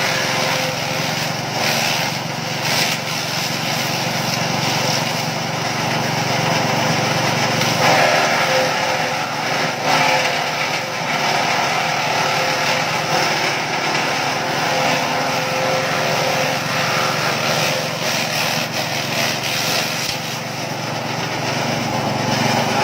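BJ 65 multifunction grass chopper running under load on a small petrol engine, its blades cutting elephant grass stalks as they are fed in, with uneven crunching over the steady engine noise.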